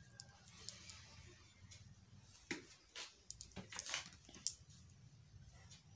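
Fingers mashing and mixing boiled potato with salt and chilli on a plate, faint soft squishes with scattered light clicks against the plate and a steel bowl, busiest in the middle.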